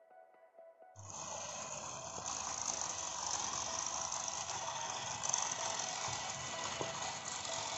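Small battery-powered light-up toy car running along a plastic snap-together Magic Tracks race track: a steady motor whir with rapid rattling ticks from the wheels over the track segments, starting about a second in after a faint end of jingle music.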